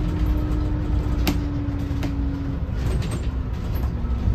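Scania DC09 five-cylinder diesel engine of a Scania K280CB bus running with a steady low rumble. Over it a steady whine sags slightly in pitch and dies away about halfway through, and a lower whine comes in near the end. Two sharp clicks come about one and two seconds in.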